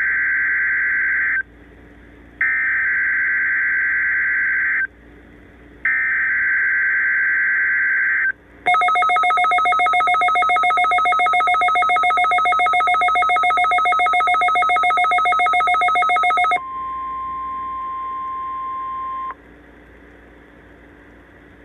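NOAA Weather Radio Required Weekly Test tones: three bursts of the screechy digital SAME header data, then about eight seconds of a loud, rapidly pulsing electronic alarm. After that, a quieter steady single tone, the warning alarm tone, lasts about three seconds and cuts off suddenly.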